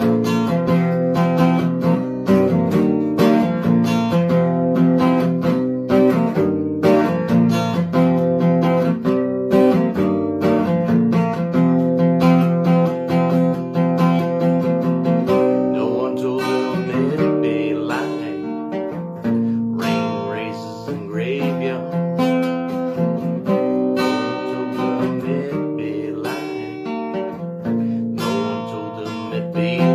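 Acoustic guitar being strummed, a steady run of chords played with quick, repeated strokes.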